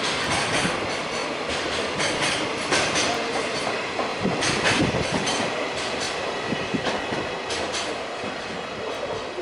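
Freight train of container flatcars passing, its wheels clicking over the rail joints in a steady run of clacks, the sound easing off a little near the end as the last wagons go by.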